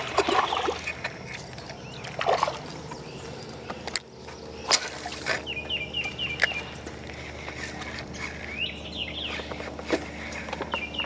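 A bird calling in quick runs of short high notes, twice, over a steady low hum, with a few sharp clicks and knocks.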